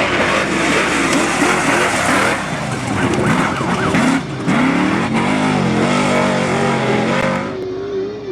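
Off-road race vehicle engines running hard, their pitch rising and falling as they rev, over a rough hiss of tyres and dirt. The sound dips briefly about halfway through, and near the end the hiss drops out, leaving a steadier engine note.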